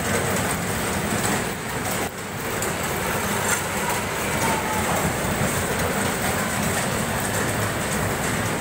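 Electric bumper cars driving on a concrete floor: a steady rattling rumble of wheels and motors, heard from on board one of the cars.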